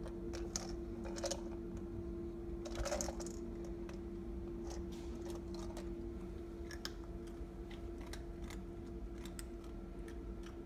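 A plastic treat ball being nudged and rolled by a Burmese cat, the treats inside rattling: short clicks, with a louder cluster of rattling about three seconds in, then sparser light ticks. A steady low hum runs underneath.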